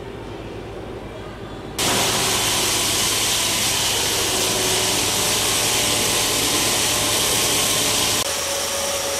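Workshop machine running steadily, a loud even hiss with a low hum underneath. It starts abruptly about two seconds in and drops a little in level near the end; before it there is only quieter background noise.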